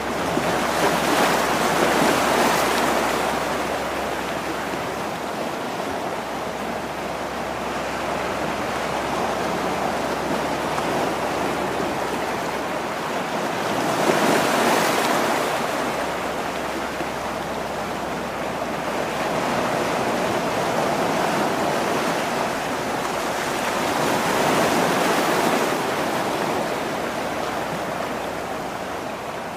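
Sea waves washing against a rocky shore, a steady rush that swells and ebbs in slow surges every several seconds.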